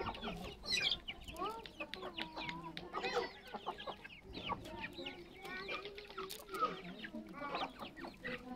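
Flock of domestic chickens clucking, with many short calls overlapping one another.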